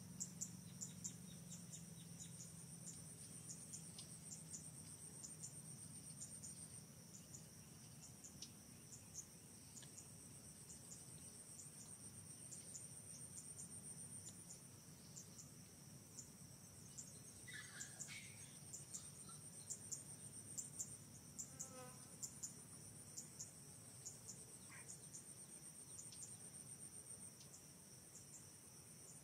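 Faint, steady, high-pitched insect chorus with rapid pulsing. A few short chirping calls come about midway.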